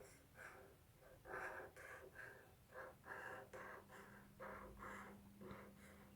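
Faint, quick strokes of a pen drawing on a page, about two or three a second, with a faint low steady hum coming in about a second and a half in.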